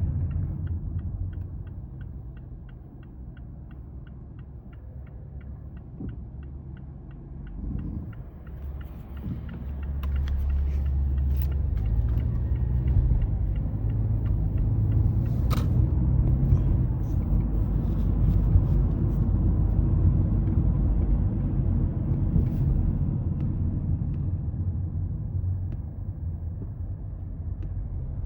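Mazda 3 cabin noise while driving: a low rumble of engine and road that is quieter for the first several seconds, then grows louder about ten seconds in and stays steady as the car picks up speed. A quick, regular ticking runs through the first six seconds or so.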